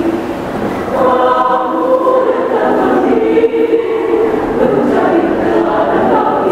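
Women's choir singing in harmony, holding chords in several parts that move from note to note.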